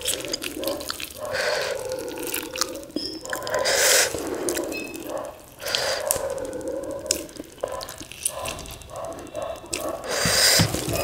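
A lemon half squeezed hard by hand over rice, its juice dripping onto the plate with wet squishing of the pulp and peel. The squeezes come in irregular bursts.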